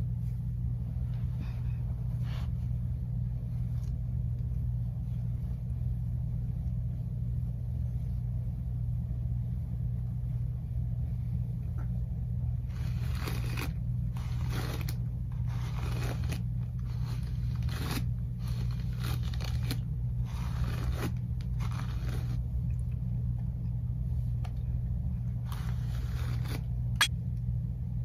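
InfinitiPro by Conair hot air brush running with a steady low motor hum. From about halfway on, a series of short scraping rustles comes and goes over the hum.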